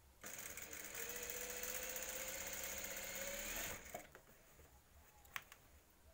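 Industrial lockstitch sewing machine stitching a seam for about three and a half seconds, its motor whine rising slightly in pitch, then stopping. A single sharp click follows about a second and a half later.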